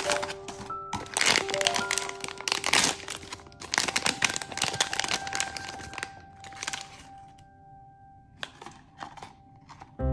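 Foil blind-box bag crinkling and tearing as it is opened and the figure pulled out, dense crackling for the first several seconds, then a few light clicks of handling. Soft background music with held notes plays underneath.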